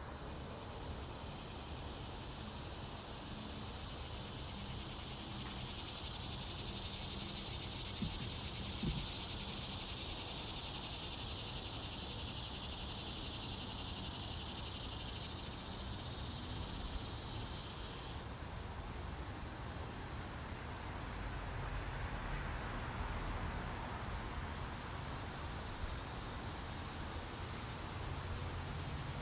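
A dense insect chorus: a steady, high-pitched chirring that swells in the middle and eases off after about 18 seconds.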